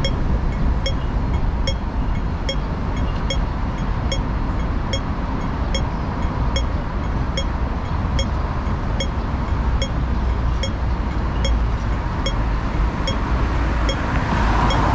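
Steady road traffic on a busy city road, with a faint, regular ticking about two to three times a second throughout.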